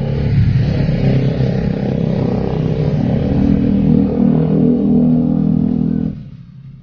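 Motor vehicles passing on the road close by, a motorcycle among them: engines running loudly with shifting pitch, dropping away sharply about six seconds in.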